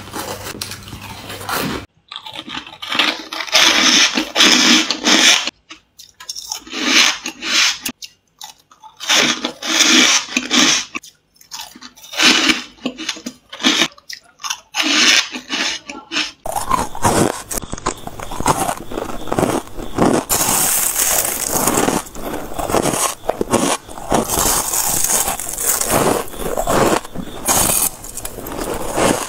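Close-up crunching of soft, crumbly freezer ice being bitten and chewed. The crunches come in bursts about a second long with short pauses between, then turn denser and near-continuous later on.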